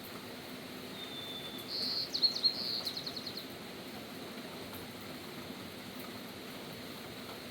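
Steady hiss of falling rain, with a songbird singing once about a second in: a thin high whistle, then a quick run of high notes that slows into a trill and stops about three and a half seconds in.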